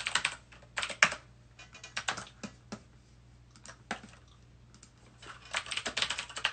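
Fast typing on a keyboard, a text message being written. It comes in bursts of rapid clicks, thins out and pauses in the middle, and picks up again near the end.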